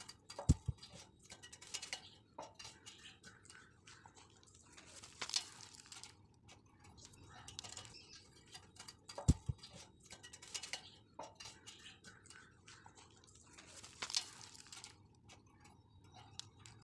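Scattered small metal clinks and light taps from hands working a steel gate's bottom bracket and a small metal fitting, with two low thumps, one about half a second in and one about nine seconds in.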